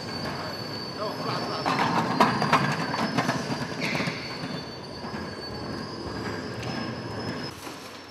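Loaded hand pallet jack rolling across a concrete floor: its wheels rumble and rattle under a thin, high, steady squeal. A cluster of sharp knocks and clatter comes about two to three seconds in. The squeal and rumble die away near the end as the jack stops.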